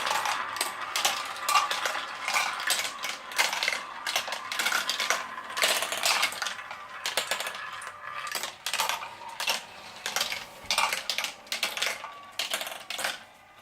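Glass marbles rolling and clattering down a plastic Quercetti marble run, with a quick irregular stream of small clicks and taps that thins out near the end.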